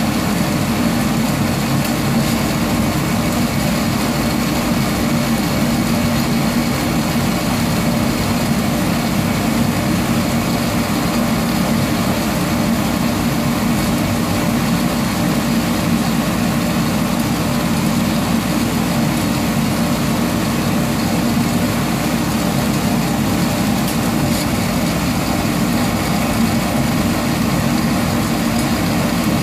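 Sonofresco fluid-bed coffee roaster running: the hot-air blower gives a steady hum and whoosh while the beans tumble in the glass chamber. The beans are still in the early drying stage, turning from green to yellow, so no cracking is heard yet.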